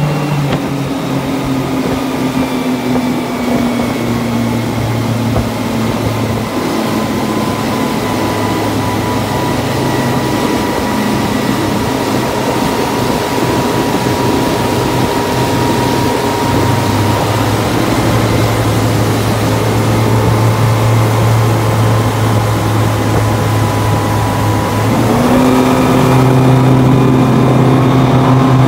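Twin Honda BF225 V6 four-stroke outboards running at speed over the rush of the wake, their note steady and dipping slightly a few seconds in. About 25 seconds in the pitch rises and the sound gets a little louder.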